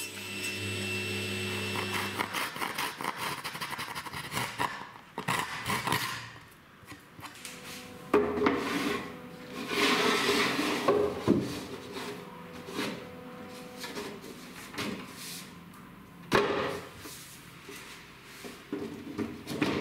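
Table saw motor running, cutting off about two seconds in. Then laminate planks slide, rub and knock against each other and the wooden drawer frame as they are angled and fitted together, with a sharp knock near the end.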